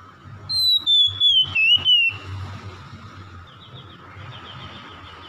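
Oriental magpie-robin singing: one loud whistled phrase about a second and a half long that slides down in pitch, with a few sharp clicks through it, then a faint quick run of high notes.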